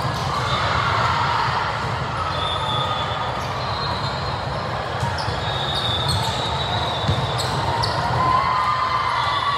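Indoor volleyball rally: sneakers squeaking on the court and a few sharp hits on the ball over a steady hum of crowd chatter in the hall.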